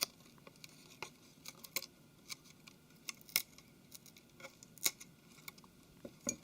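Irregular small clicks and light taps of a hand tool and small parts against a smartphone's casing, about a dozen sharp ticks spread unevenly, the loudest a little over three and nearly five seconds in.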